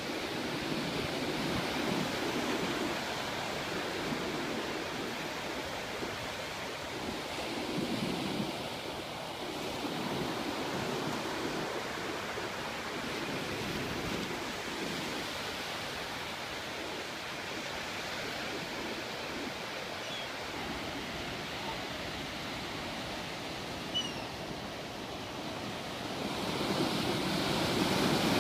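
Ocean surf breaking and washing up onto a sandy beach: a steady rush that swells as each wave comes in, loudest near the end.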